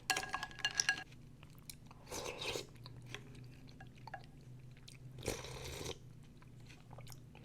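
Close-up eating sounds of chè ba màu, Vietnamese three-colour dessert of grass jelly, mung bean and red bean: a few short bursts of chewing and spooning, with light clinks in the first one.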